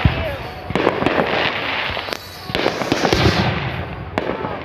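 Fireworks going off: a run of sharp bangs over crackling, with a dense burst of crackle a little past the middle.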